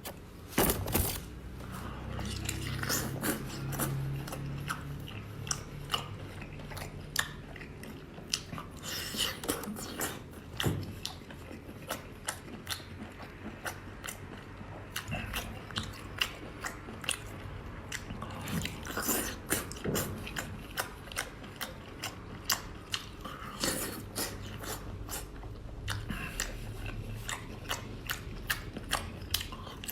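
Close-miked eating of seafood: steady chewing and biting with many irregular sharp wet clicks and smacks.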